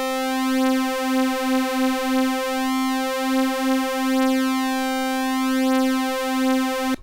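A single held note on a Logic Pro software synthesizer: two sawtooth oscillators on the same pitch, the second one's pitch swayed by a slow LFO, so the tone wavers in a slow, uneven beat. The note cuts off just before the end.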